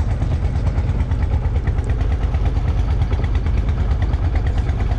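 A fishing boat's engine running steadily at idle, with a fast, even chugging beat.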